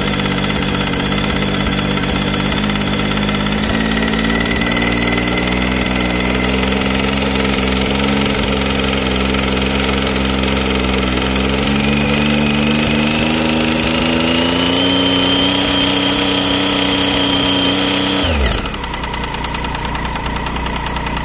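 Triumph Tiger 800 XC's three-cylinder engine running, its revs climbing slowly and then dropping sharply about 18 seconds in, with a ticking noise from the engine.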